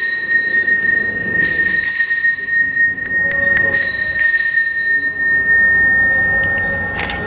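Altar bell struck twice, each stroke leaving a clear, steady ring that hangs on for seconds, rung at the elevation of the chalice during the consecration of the Mass. A short knock comes near the end.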